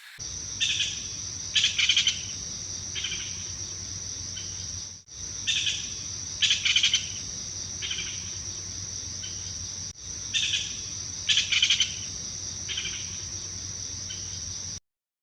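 Japanese green woodpecker calling: groups of short, sharp call notes, the same pattern coming three times about five seconds apart. Beneath them runs a steady, high, continuous insect drone.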